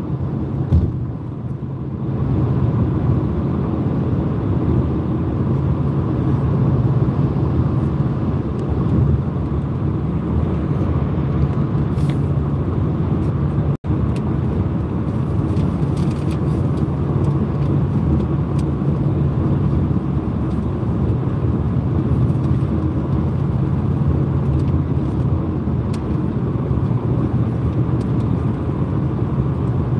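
Steady road noise heard inside a car's cabin at highway speed: tyre and engine drone with a strong low hum. The sound briefly cuts out about halfway through.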